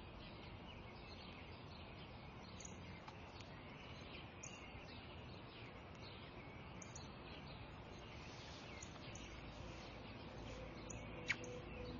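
Quiet outdoor ambience with small birds chirping now and then in the background, and one sharper chirp near the end.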